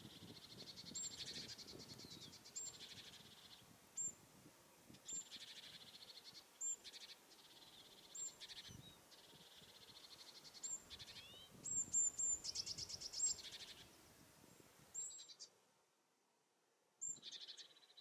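Small songbirds singing faintly: sharp high call notes repeated every second or so, mixed with rapid trills. There is a pause of about two seconds near the end.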